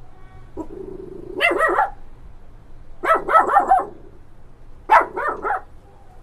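A puppy barking in play: three quick runs of short, high-pitched barks, with a low growl just before the first run.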